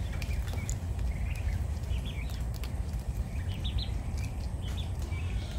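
Steady low rumble of wind buffeting the microphone, with a few faint, short high chirps from birds scattered through it.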